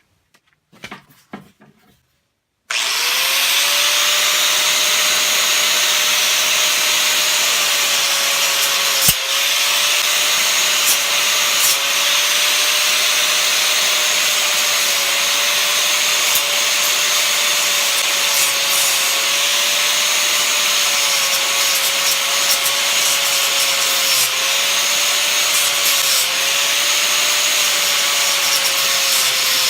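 A Hitachi angle grinder with a 4.5-inch cutting wheel starts about three seconds in and runs steadily. Its whine dips briefly and recovers again and again as the wheel bites while cutting through the copper windings of a ceiling fan motor.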